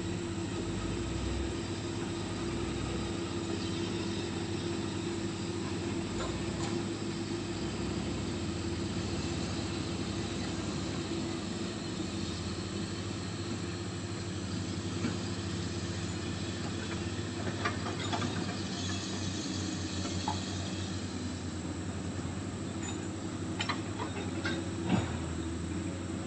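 Excavator engine running steadily with a hissing hum, with scattered knocks as material is handled, the sharpest one about a second before the end.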